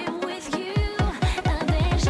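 Background music from an electronic track. Sustained tones play, and from a little before halfway in a run of drum hits that fall in pitch comes in, getting faster.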